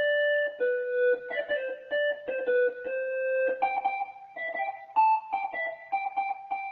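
EWI 5000 electronic wind instrument sounding a synth preset, playing a quick melody of short notes with sharp starts, broken by a few longer held notes. A higher note stands out about five seconds in.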